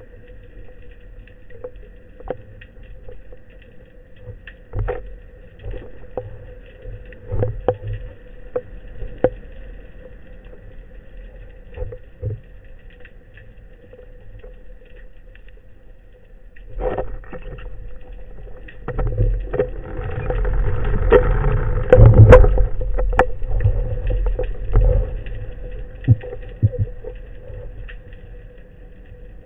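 Muffled underwater sound picked up through a camera housing: scattered clicks and knocks over a faint steady hum, swelling into a louder low rumble from about 17 to 25 seconds in.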